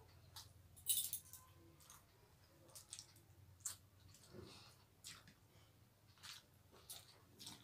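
Scattered soft clicks and light clinks of fingers working rice on china plates and bangles touching the plate, the sharpest about a second in, over a faint steady low hum.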